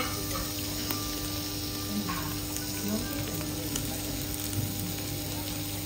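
Wagyu beef sizzling steadily on a hot steel teppanyaki griddle, with a few sharp metallic clicks from the chef's steel spatulas. The loudest click comes right at the start, as the steak is set down.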